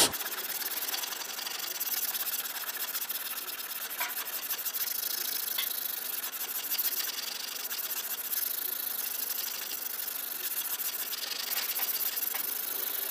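Hand sanding block with 180-grit paper worked over cured body filler on a car panel, a fast, steady rasping with no separate strokes, as the filler is knocked down and shaped.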